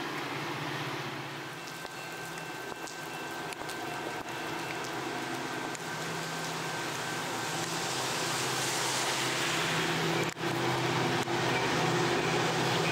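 Heavy rain hissing while a Metra commuter train's diesel locomotive runs with a low, steady hum. The hiss grows louder and brighter about eight seconds in.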